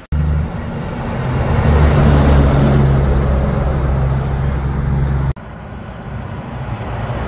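Heavy trucks passing on a highway: a truck's steady low engine drone and tyre noise swell as it goes by. After a sudden cut, another truck approaches, growing louder.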